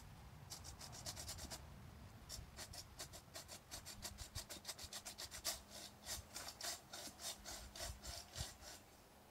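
Hand saw cutting through the trunk of a dead tree in quick, even back-and-forth strokes, several a second. The strokes stop shortly before the end.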